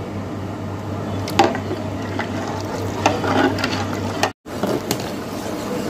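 Watery curry gravy bubbling in a large aluminium pot as it comes to the boil, over a steady low hum, with a few knocks and scrapes of a steel ladle stirring it. The sound drops out briefly about four seconds in.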